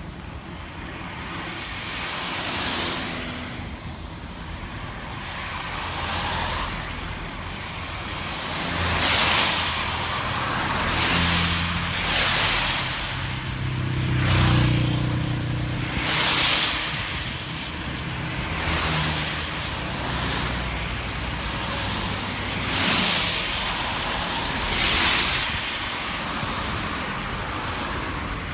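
Road traffic: cars passing one after another, each a swell of tyre and engine noise that rises and fades, about every one to two seconds. About halfway through, a heavier vehicle passes with a deeper rumble.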